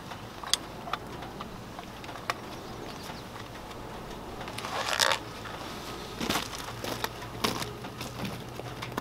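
Hunting gear and clothing being handled: a few sharp clicks in the first couple of seconds, a longer rustle about five seconds in, then more clicks and rustles near the end.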